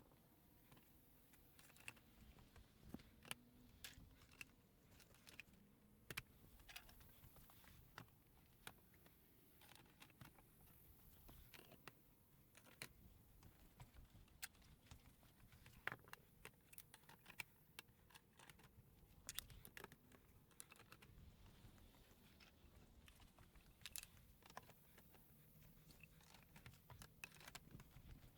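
Faint, irregular clicks and taps of plastic brackets and composite boards being handled and fitted together.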